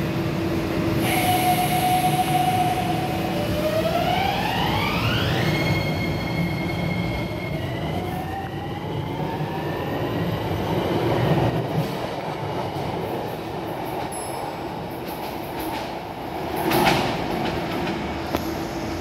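Hitachi-built Miami Metrorail train pulling away from the platform: its electric traction motors whine on one held note, then climb in pitch in steps as the train picks up speed, over the rumble of the wheels on the rails. A single sharp clank near the end.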